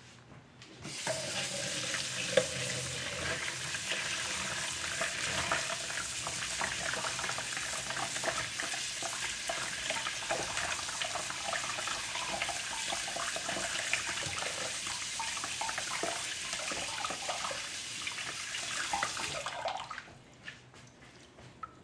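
Kitchen faucet running onto a lobster tail held under the stream, splashing into a bowl in a stainless steel sink while hands rub the shell clean. The tap comes on about a second in and shuts off abruptly near the end.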